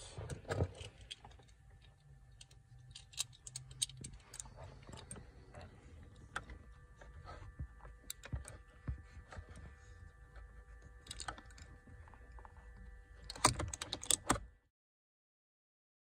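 Light, scattered clicks and taps of a hand screwdriver and Torx bit working the airbag screws behind a steering wheel. A burst of louder clicks comes near the end, then the sound cuts off abruptly.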